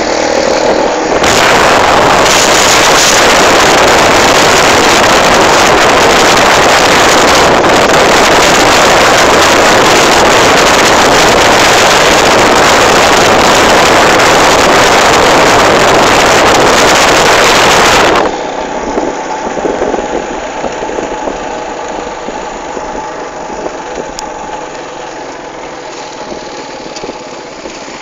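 Riding in a moving road vehicle: a loud, continuous rushing noise of travel with engine and wind. About 18 seconds in it drops suddenly to a quieter, steady engine and road rumble.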